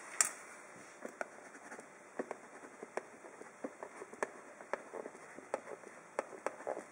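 Ballpoint pen writing on a thin plastic takeaway tub: faint scratching with small irregular ticks and taps, and a sharper click just after the start.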